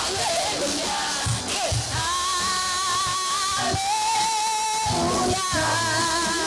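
Live worship band music with singers: voices move through changing phrases at first, then hold long notes from about two seconds in.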